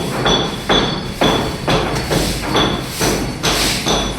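Hammer striking a steel chisel over and over, about two blows a second, each with a short metallic ring: a concrete floor being chipped to prepare it for tiling.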